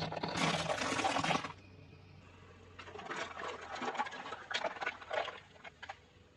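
Eating noises close to the microphone: a loud rush of wet noise for about a second and a half, then a few seconds of irregular crisp crunching and clicks.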